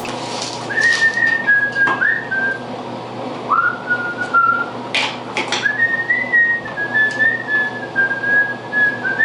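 A person whistling a tune in held, gliding notes, with a few sharp clicks about halfway through.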